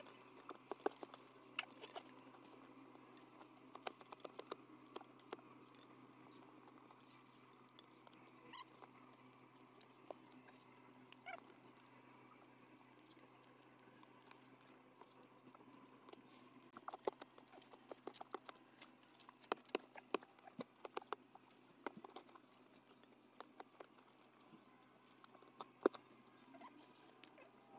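Scattered sharp taps and scratches of a pointed hand tool digging and scraping into an earth bank at a wild bee nest, with soil crumbling away. The taps come in bunches, thickest in the first few seconds and again through the second half.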